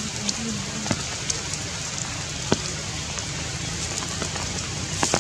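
Heavy rain falling steadily on forest leaves, with scattered louder drops hitting near the microphone.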